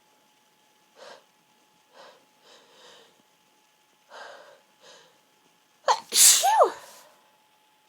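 A woman sneezing once, loudly and suddenly, about six seconds in, her voice falling in pitch through the sneeze. A few faint, short breaths come before it.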